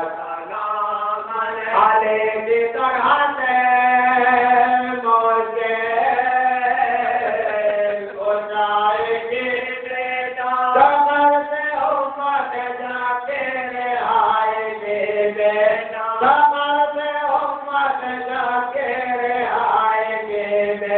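A man's voice chanting a melodic recitation, unaccompanied, in long held phrases that bend up and down in pitch with short breaks between them.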